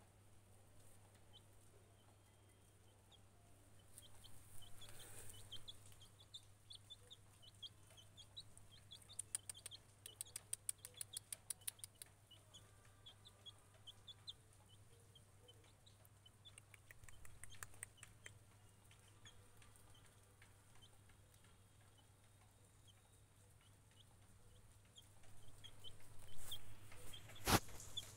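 Young chick peeping over and over in short, high chirps that come in clusters. A run of rapid ticks about a third of the way in, and a single sharp click near the end.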